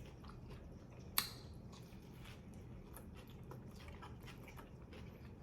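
Close-miked chewing of a sandwich: faint, wet mouth sounds with small scattered clicks and one sharp click about a second in.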